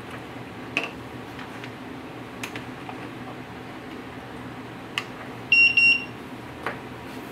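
A few small plastic clicks of boards and the USB plug being pushed into place, then, about five and a half seconds in, the fingerprint scanner kit's buzzer gives a short, high electronic beep broken into quick pulses as the Arduino board powers up.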